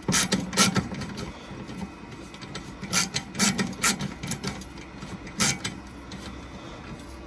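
M5 screw being turned with a driver bit into a T-nut in an aluminium extrusion frame: scattered, irregular clicks and scrapes of bit, screw and metal as the thread starts to bite.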